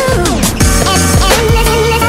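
Background music with a beat of drum hits, a wavering lead melody and sliding bass notes.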